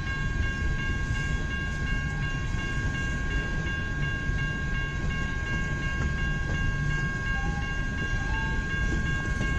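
Freight train of coal cars rolling past: a steady low rumble of wheels on rail, with a steady high-pitched tone held above it.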